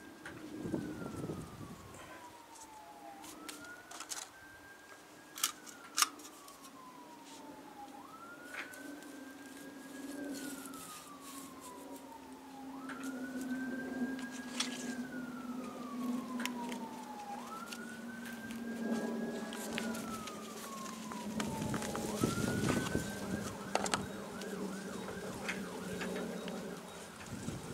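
Emergency-vehicle siren wailing: each cycle rises quickly, holds, then glides down, repeating about every four seconds. Near the end it changes to a faster warble as a low rumble grows. A few sharp clicks sound close by.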